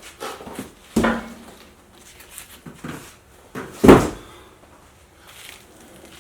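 Cardboard box and foam packaging being handled, with two sudden thumps, one about a second in and a louder one near four seconds, and softer rustling and knocks between them.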